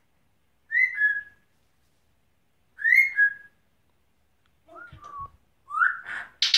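African grey parrot whistling: two matching whistles about two seconds apart, each rising then settling on a lower held note, then a weaker, lower call and another rising whistle that runs into a loud harsh burst at the very end.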